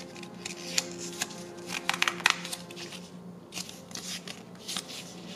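Thin paper pages of a small booklet turned by hand: crisp rustles and flicks, with a cluster of sharp snaps about two seconds in.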